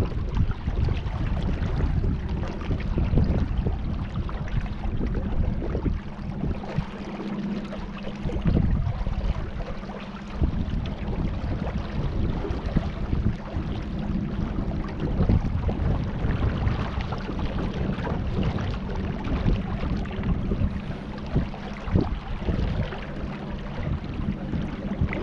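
Wind rumbling on the microphone and water noise from a kayak on a river, over a steady low hum.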